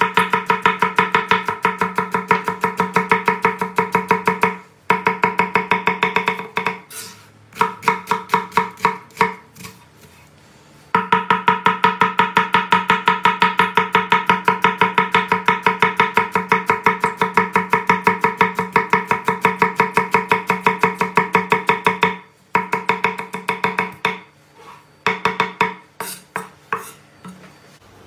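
Kitchen knife rapidly chopping onion on a wooden cutting board, in quick even strokes of about four to five a second, over background music that drops out twice for a few seconds.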